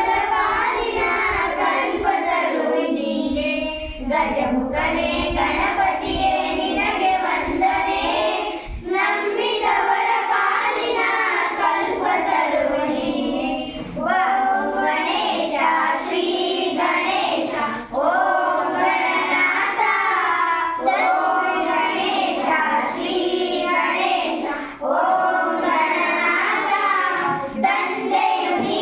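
A small group of young girls singing a song together, in phrases with short breaks between them.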